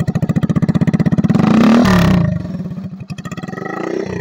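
Hero Splendor motorcycle's single-cylinder four-stroke engine running through a modified aftermarket silencer, revved briefly about a second and a half in and then dropping back to a slower idle.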